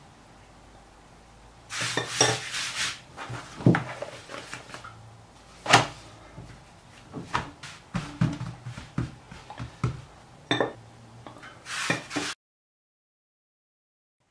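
Countertop handling noises as pizza dough is floured and worked by hand: scattered knocks and taps, with two short bursts of brushing noise, one about two seconds in and one near the end.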